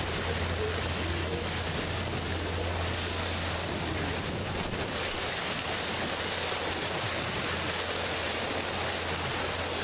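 Sea water rushing and splashing along the hull of a slowly moving boat, with wind on the microphone and a low steady hum underneath.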